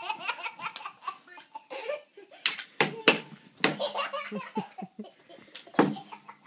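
Toddler laughing hard in repeated bursts of belly laughter.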